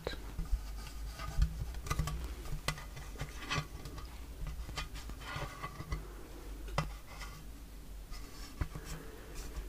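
Long fingernails tapping and scratching on the lid of a metal biscuit tin, in irregular light taps.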